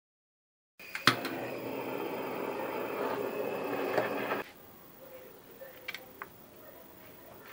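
Handheld kitchen blowtorch running with a steady flame hiss for about three and a half seconds, warming the metal cake frame so the frozen cheesecake releases. A sharp click comes just after it starts, and it cuts off abruptly. A few faint clicks follow as the frame is handled.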